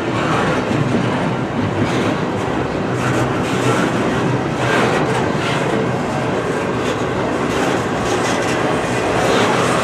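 Freight train cars rolling past, their wheels clattering steadily on the rails.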